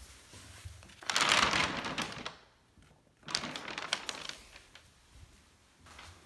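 Brown kraft protective paper over the floor crinkling and rustling under footsteps, in two bursts about a second long each with fainter rustles between.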